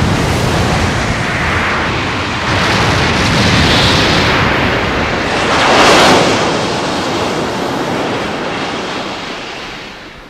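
Dragon Ball Z sea-waves sound effect: surf rushing in rising and falling swells, the biggest wave breaking about six seconds in, then fading away.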